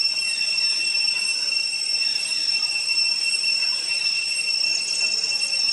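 Cicada chorus: a steady, high-pitched drone on two even tones, with a brief faint rapid chirping near the end.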